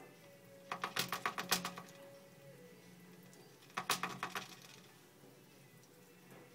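Pet hedgehog drinking from a hanging water bottle, its licks rattling the metal ball-tip spout: two runs of rapid clicking, about ten clicks a second. The first run lasts about a second; the second, shorter, comes about four seconds in.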